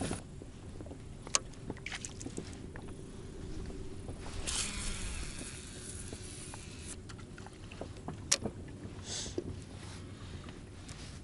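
Fishing tackle handled in a small boat: a few sharp clicks and knocks, and a high hiss of about two and a half seconds near the middle as a lure is cast off a baitcasting reel, with a shorter hiss near the end.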